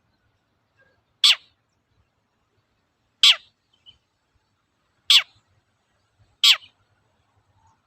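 Long-tailed shrike (cendet) giving four short, sharp calls about two seconds apart, each a quick downward sweep in pitch.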